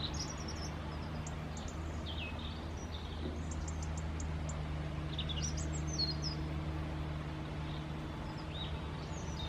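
Small birds chirping and calling: scattered short, high chirps and quick trills, busiest in the middle, over a steady low background hum.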